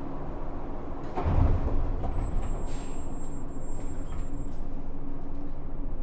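Running sound of a JR West 103 series electric train heard from inside a motor car, recorded above the traction motor: a steady low hum with running noise. About a second in comes a sudden loud low rush, after which the running noise stays louder.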